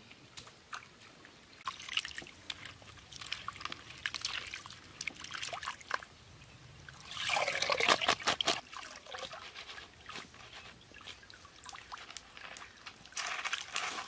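Stream water splashing and trickling as a woven bamboo basket of prawns is rinsed in it. Scattered small splashes and drips build to a loud stretch of pouring and sloshing about seven seconds in, lasting a second and a half.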